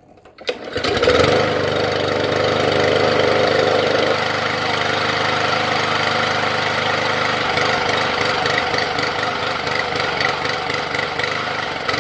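Brand-new Briggs & Stratton EXi725 163cc single-cylinder engine on a push mower being pull-started for its first test fire: it catches right away, about a second in, and then runs steadily.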